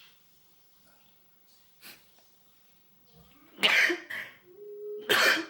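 A person sneezing twice during a nasal swab test. The first sneeze comes about three and a half seconds in; the second follows a short drawn-in "ah" about a second and a half later.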